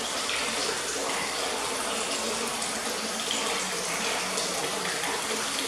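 Liquid running steadily, a constant rush like a tap or a pipe pouring into a tank, with a faint steady hum beneath it.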